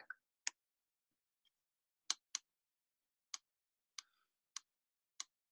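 Computer mouse clicks: about seven short, sharp single clicks spaced unevenly, two of them close together about two seconds in, with silence between.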